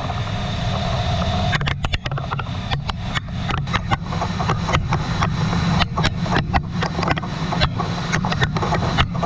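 DN Solutions DVF 8000T mill-turn machine turning a large 4140 steel workpiece dry, with an indexable insert taking a roughing cut: a steady low running sound of the spinning part and machine. Irregular sharp ticks of steel chips striking the machine enclosure run through it.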